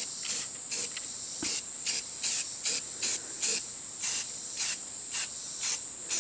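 Insects chirping: a steady high-pitched trill with a louder, evenly repeated chirp about twice a second.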